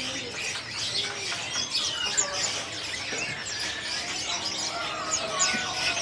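Many small songbirds chirping at once, a crowded cage of white-eyes: short, high chirps and twitters overlapping without pause.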